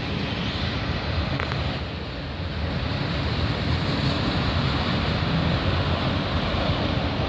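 CN freight train cars rolling past at speed, a steady rumble and rush of wheels on rail.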